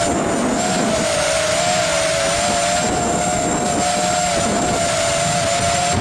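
ZMR250 racing quadcopter's motors and propellers whining steadily, the pitch wavering slightly up and down as the throttle is worked, over a constant rush of wind noise.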